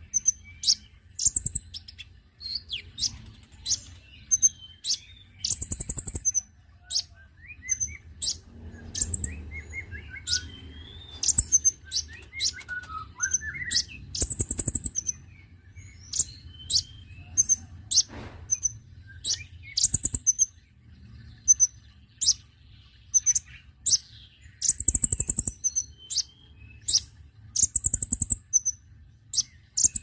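Male Van Hasselt's sunbird (kolibri ninja, 'konin') singing in a cage: a rapid string of short, sharp, very high chirps, several a second, with a few quieter, lower twittering phrases mixed in.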